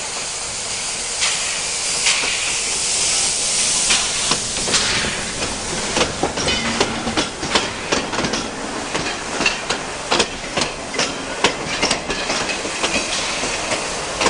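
A steam train passes close by: steam hissing from the locomotive as it comes up, then the carriages rolling past with the clickety-clack of wheels over the rail joints, about two clacks a second.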